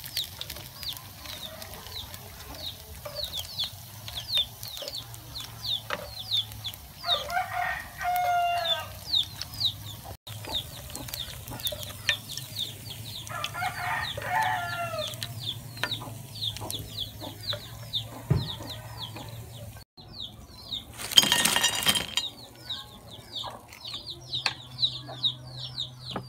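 Chickens: a rooster crows twice, over steady rapid high peeping. A brief loud burst of noise comes near the end.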